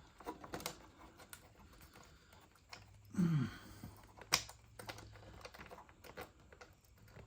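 Scattered light clicks and taps of small refrigerator dispenser parts and a screw being handled, with one sharper click a little past four seconds. A short low sound falling in pitch comes just after three seconds.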